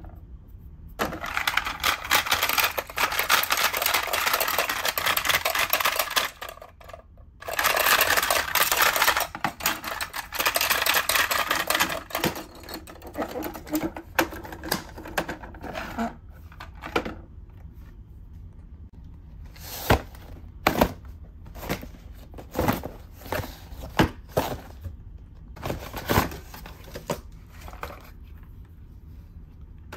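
Rapid, dense clattering of a plastic Minions hammer-battle toy as its buttons are pressed over and over and the small hammers swing, in two long bursts with a brief pause between. Then come a handful of separate sharp plastic knocks as air hockey mallets are handled and taken out of a cardboard box.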